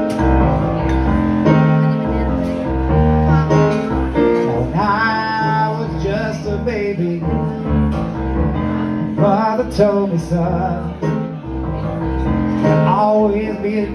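Blues harmonica played through a hand-held microphone, with bent, wavering notes over a Nord Stage 2 keyboard playing chords and a bass line.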